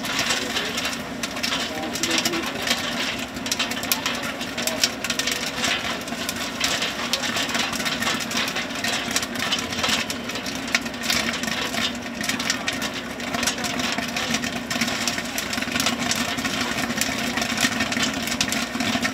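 A machine running: a steady hum with a dense crackle of small clicks over it.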